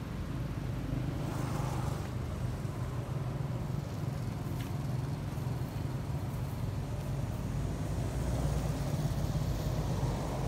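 A vehicle engine running steadily at low revs, a low, even hum.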